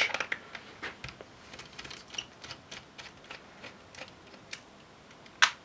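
Light, irregular ticking and clicking of a small Torx T5 precision screwdriver turning out screws from a laptop's metal base panel, with a sharper click near the end.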